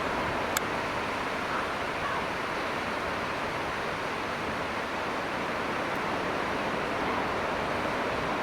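Steady wash of surf breaking on the beach, from leftover typhoon swell. A single sharp click sounds about half a second in.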